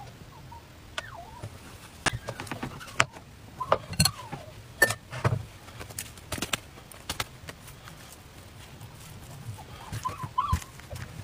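Scattered sharp clicks and taps of a small electric crepe pan being lifted, turned over and set down on a wooden board. Near the end there is a short cluster of light handling noises and squeaks as a hand gathers shredded green onion.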